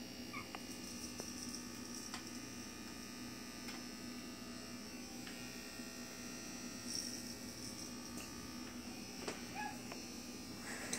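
Corded electric hair clippers running with a steady buzz as they trim a small child's hair.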